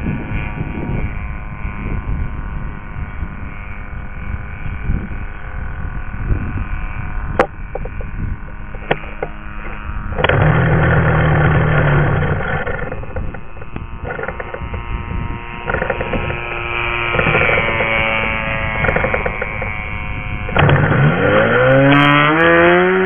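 Model airplane's engine running steadily in flight, with wind rumbling on the microphone. Near the end its pitch swoops up and down several times.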